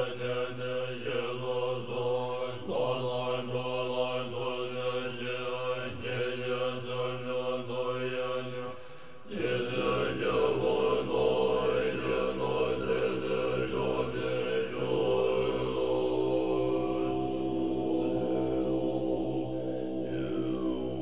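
Chanting of a Buddhist mantra over a steady drone, the chant line rising and falling above it; it breaks off briefly about nine seconds in and carries on as a fuller drone.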